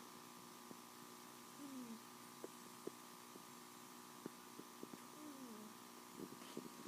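Domestic cat snoring softly: two faint, short snores that fall in pitch, about three and a half seconds apart, over a steady electrical hum, with a few faint ticks.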